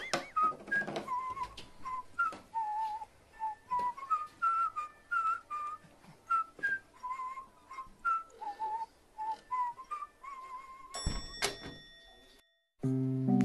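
A whistled tune of short stepping notes. About eleven seconds in, a sharp struck hit with ringing tones ends it. After a moment of silence, a piano and guitar music piece starts near the end.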